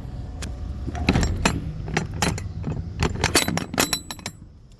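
Metal parts and tools being handled: a run of sharp clicks and clinks, some ringing briefly, over a steady low hum.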